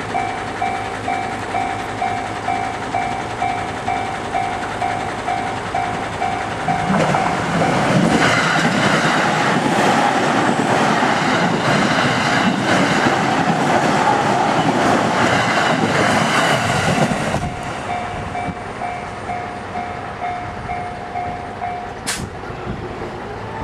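Japanese level-crossing alarm bell dinging steadily, then a JR 209-series electric train passes over the crossing, its wheels clacking over the rail joints and drowning the bell for about ten seconds. After the train has gone the bell is heard again and stops about 22 seconds in.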